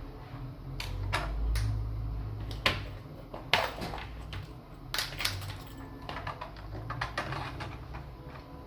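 Keys on an AlphaSmart Neo2 keyboard clacking in an irregular run of separate keystrokes, as on a typewriter, over a low hum.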